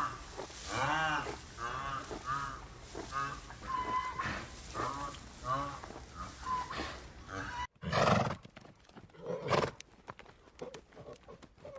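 Horses calling: a run of short pitched whinnying calls. After a cut come two loud snorting blasts, followed by light knocks.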